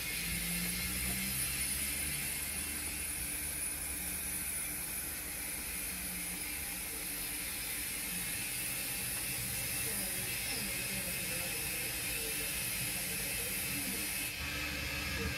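0 gauge model steam locomotive running slowly over the layout's track: a steady mechanical whirr of its electric motor and gears, with wheel noise on the rails. Part of the higher hiss drops away shortly before the end.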